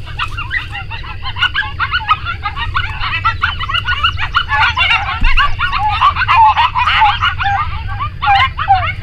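A pack of coyotes giving a group yip-howl: many short, quavering yips and yelps overlapping in a dense chorus that grows louder in the middle. A steady low rumble of wind on the microphone lies beneath.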